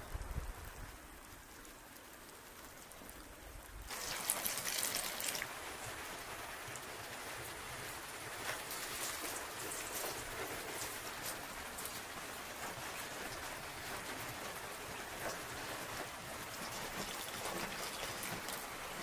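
Steady rain falling, with scattered drops. It becomes suddenly louder and brighter about four seconds in and holds there.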